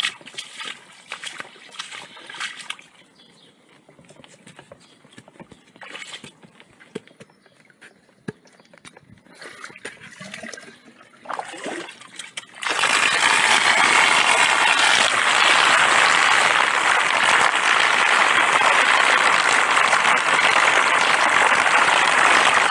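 Boots splashing through shallow floodwater. About halfway through, the cover is lifted off a blocked garden drain and the pooled rainwater suddenly rushes down it in a loud, steady torrent.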